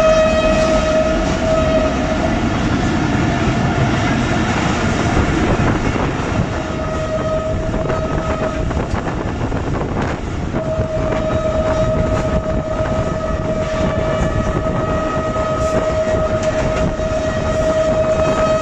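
Diesel locomotive horn of a Pakistan Railways RGE-20 sounding three long steady blasts: one at the very start, a second of about two seconds some six seconds in, and a third held from about ten and a half seconds on. Underneath runs the steady rumble and rattle of the moving passenger coaches on the track.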